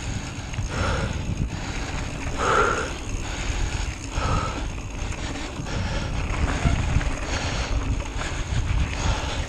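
A cyclist's heavy breathing from exertion: three loud exhales in the first half, about 1.5 to 2 s apart, then fainter breaths. Wind rumbles on the microphone throughout.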